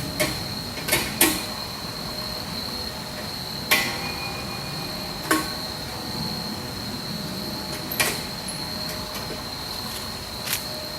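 About seven sharp knocks and clicks at irregular intervals, some with a short metallic ring, from hand work on the forge chimney's screen. A steady high-pitched insect drone runs underneath.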